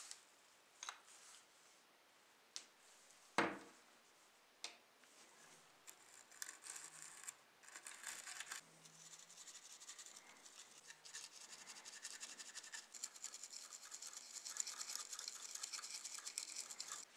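A small brush scrubbing dirt off the underside of a model car: a dense, fast scratching that grows louder toward the end. Before it come a few knocks and clicks as the model is handled, the loudest about three seconds in.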